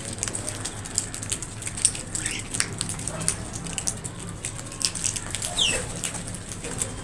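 Crows calling in short calls among many sharp clicks and taps, with a brief falling call about five and a half seconds in.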